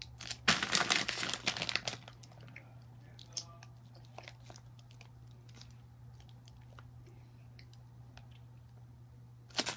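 Candy being handled and eaten: a burst of crinkling and crunching for about a second and a half near the start, then faint scattered clicks.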